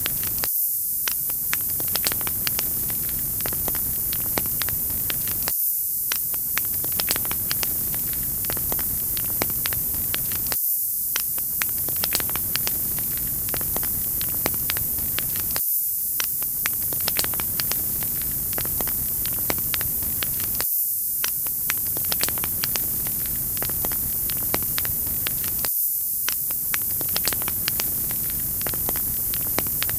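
Wood fire crackling: frequent sharp snaps and pops over a steady high hiss, with a short lull about every five seconds as the recording loops.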